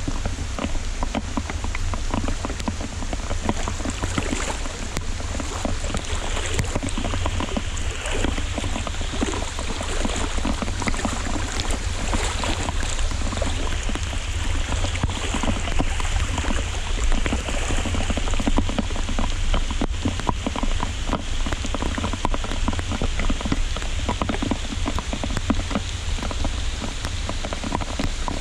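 Heavy rain falling: a dense, steady patter of drops hitting surfaces, over a constant low rumble.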